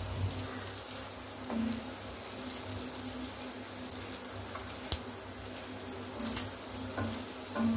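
Bun parottas shallow-frying in plenty of oil on a hot tawa: steady sizzling with scattered crackles, and a few soft knocks as a wooden spatula presses them.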